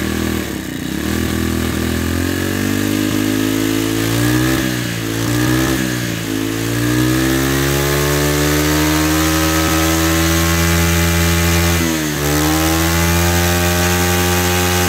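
Makita MEM427 27cc four-stroke brush cutter engine running at high throttle. Its pitch drops briefly and climbs back several times, about a second in, around five and six seconds in and near the end, and otherwise rises slowly and holds high.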